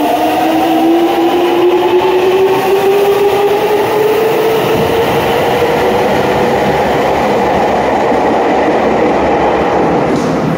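Subway train accelerating away from the platform. The electric traction motors' whine rises steadily in pitch over the first several seconds, then fades into the steady running noise of the wheels on the rails.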